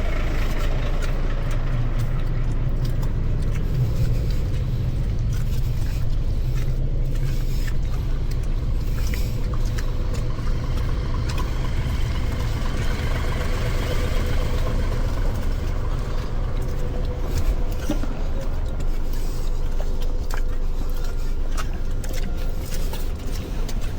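Steady low rumble of a motor vehicle's engine and road noise, running evenly throughout.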